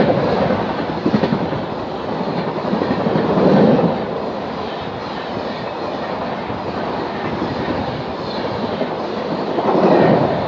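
AC Duronto Express coaches running past at speed, a steady loud rolling rumble and rattle of wheels on rail, with clickety-clack and louder swells of wheel clatter just after the start, about three and a half seconds in and near the end.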